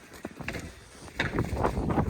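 Wind buffeting the microphone in a snowstorm, with a run of short, irregular crunching clicks from about a second in.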